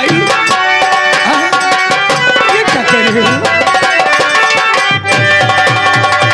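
Live nautanki folk-theatre music: rapid hand-drum strokes over held, steady instrument tones, with a wavering melodic line.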